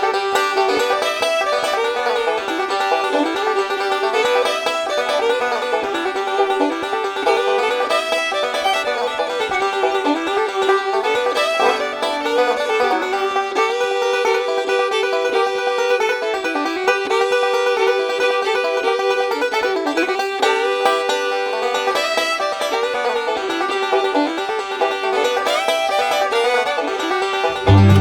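Background music: upbeat bluegrass-style tune led by a picked banjo.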